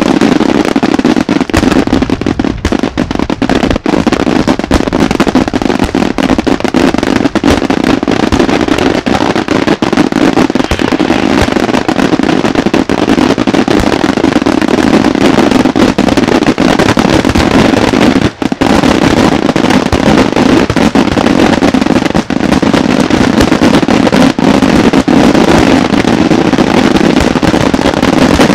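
Daytime aerial fireworks: a loud, dense, unbroken barrage of shell bursts and crackling as shells break into white crackle stars.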